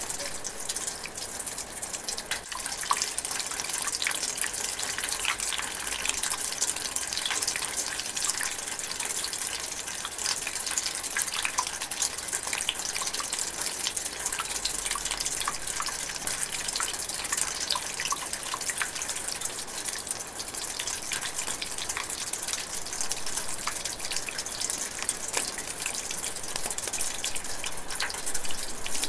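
Steady light rain, with many close drops pattering and dripping.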